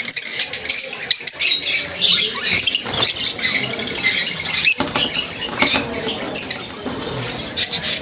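Caged peach-faced lovebirds chattering: continuous rapid, high-pitched chirps and squeaks from several birds at once.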